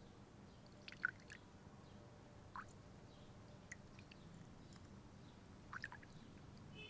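Near silence, with the soft pour of thick Turkish coffee from a copper cezve into small porcelain cups and a few faint clinks of the cups and pot.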